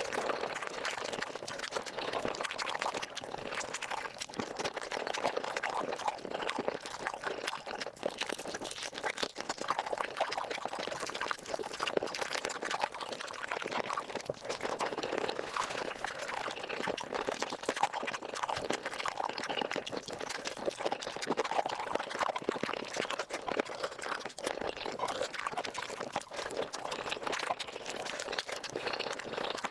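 Close-miked eating of chicken feet, sped up about five times: a dense, unbroken run of rapid wet crunching and chewing.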